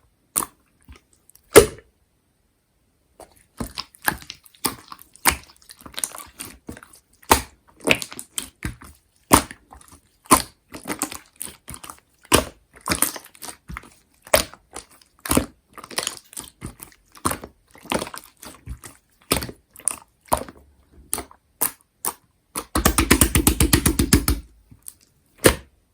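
Chewy slime being squeezed and stretched by hand, giving irregular sticky pops and clicks, with a quick run of rapid pops near the end.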